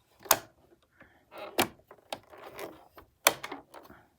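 Parts of a sewing machine's bobbin assembly being slid and clicked into place: three sharp clicks with scraping and handling noise between them.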